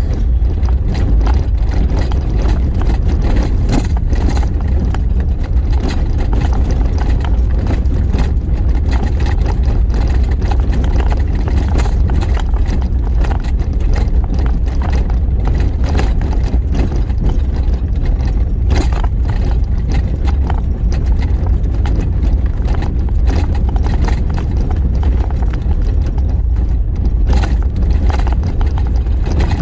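Inside a 4x4 driving slowly over a rough dirt road: a steady low rumble from the engine and tyres, with frequent rattles and knocks as it goes over bumps.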